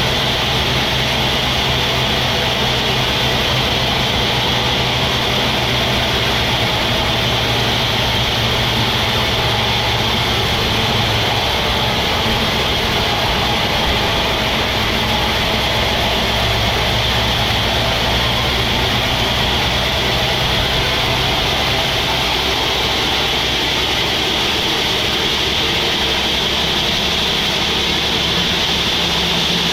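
Sawmill machinery running steadily: a deep engine hum under a constant high whine.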